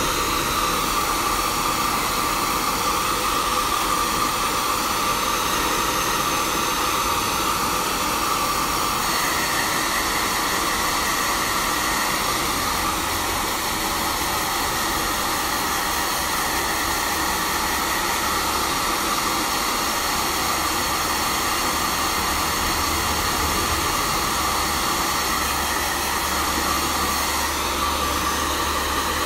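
Handheld hair dryer running steadily, blowing air over a twisted strand of wet hair, with a steady whine in its rush of air; a second, higher whine joins about nine seconds in.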